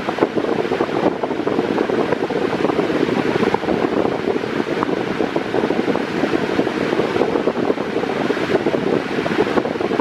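Mondial Turbo Pro-55 pedestal fan running with its original 50 cm five-blade propeller: a steady rush of air, with the airstream buffeting the microphone.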